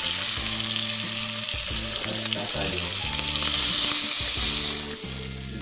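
Seed-crusted fish fillets sizzling in hot oil in a nonstick frying pan while being turned with metal tongs. The sizzle dies down near the end as the fillets come out of the pan.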